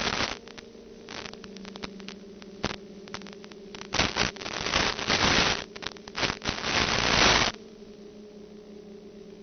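Static hiss from an analog 2.4 GHz FPV video receiver, coming in bursts as the radio signal breaks up, over a steady low hum. The longest and loudest run of hiss lasts from about four to seven and a half seconds in, then only the hum is left.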